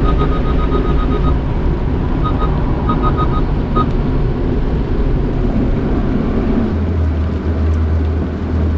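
Automatic car-wash machinery working around the car, heard from inside the cabin as a loud steady rumble and rush. In the first few seconds the car's parking sensors beep in quick runs, warning of the equipment close by, and a low steady hum sets in near the end.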